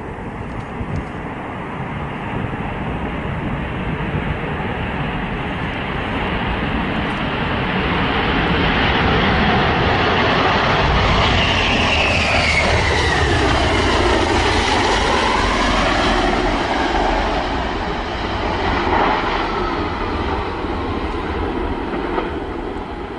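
Jet aircraft engine noise growing louder as the plane approaches, then dropping in pitch as it passes close about halfway through, and fading away.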